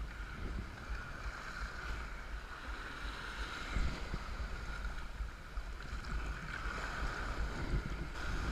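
Wind buffeting an action camera's microphone mounted on a sea kayak, over the continuous rush of steep tide-race waves breaking into whitewater around the hull.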